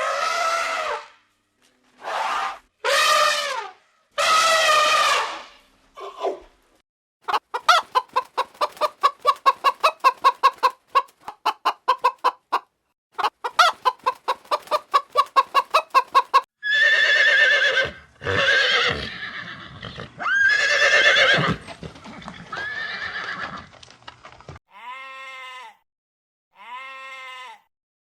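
A sequence of farm-animal calls. First comes a few separate drawn-out calls. Then a long run of rapid pulsed calls, about three or four a second, followed by louder calls and three short arching calls near the end.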